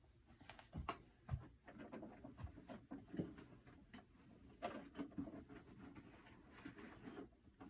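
Faint, scattered knocks, clicks and rustles of hands fitting together the parts and costume of an animated Santa figure.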